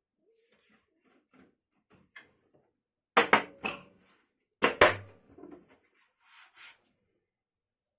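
Handling noise of hard objects: faint clicks and rustles, then two loud clattering knocks about three and four and a half seconds in, followed by a few lighter taps.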